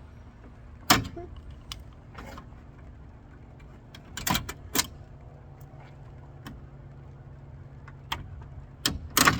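A few sharp clicks and clinks of parts being handled under a car's bonnet, about one, four and nine seconds in, over a low steady hum.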